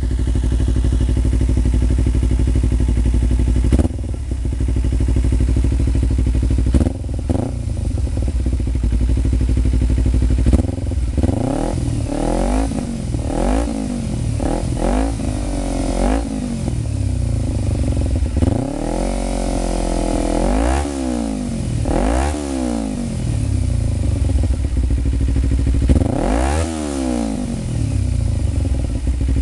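Kawasaki Ninja 250R's parallel-twin engine through a Musarri slip-on exhaust, idling steadily, then revved in a string of quick throttle blips from about ten seconds in, with one longer rev in the middle, before dropping back to idle near the end.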